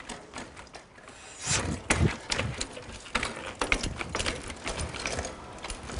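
Mountain bike hopping onto a wooden bench: a few heavy thumps of the tyres landing on the wooden slats about a second and a half in, then a run of sharp knocks, clicks and rattles from the bike on the wood.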